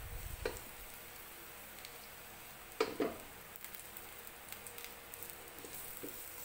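Minced garlic frying gently in hot oil in a wok, a steady low sizzle. A spatula stirring it scrapes and knocks against the wok a few times, loudest about three seconds in.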